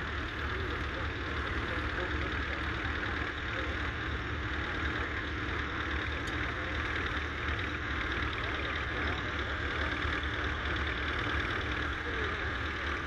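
Massey Ferguson 35's 2.3-litre four-cylinder diesel engine running steadily, with no change in speed.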